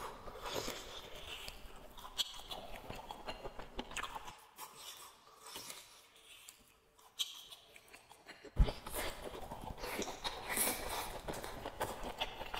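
A man biting into a strip of seared steak and chewing it close to a clip-on microphone: irregular wet mouth clicks and smacks. They go quieter for a few seconds in the middle, then a sharp click and busier chewing follow.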